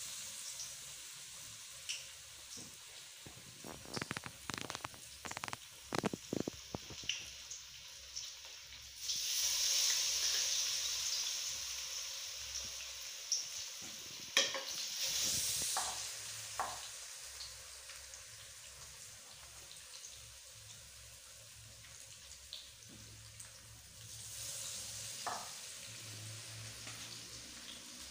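Besan-battered fish pieces frying in hot ghee in a wok: a steady sizzle that flares up loudly about nine seconds in as fresh battered pieces go into the oil, and swells again near the end. A quick run of clinks and taps from bowls and utensils a few seconds in.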